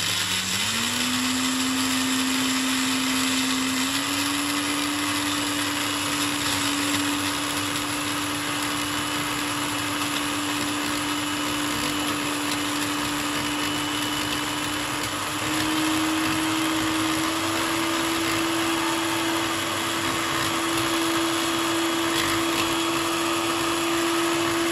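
Countertop blender with a glass jar running, crushing Oreo cookie wafers into crumbs. Its motor speeds up in the first second, then its steady hum steps up slightly in pitch twice.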